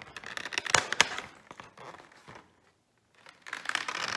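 Cardboard of a chocolate advent calendar crinkling and rustling as fingers work a door open, with a couple of sharp clicks about a second in. It goes quiet briefly, then the rustling resumes near the end.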